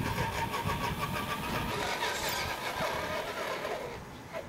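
Tamiya CC01 radio-controlled crawler's electric motor and gears whining as it drives over gravel, the pitch rising and falling with the throttle. The sound drops away about four seconds in.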